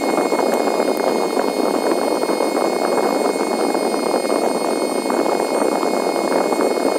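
Steady rushing noise of a small motor-driven blower, with faint high steady whines over it.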